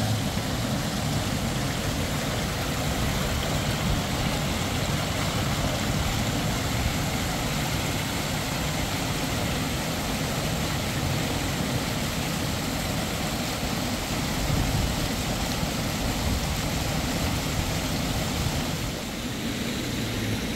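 Steady vehicle rumble with road and engine noise, even and unbroken, heaviest in the low range.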